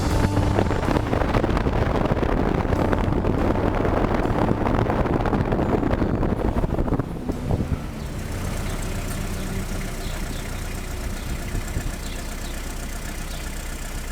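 Steady vehicle noise, like a car running. It is louder for the first seven seconds, then drops fairly suddenly to a quieter, even hum.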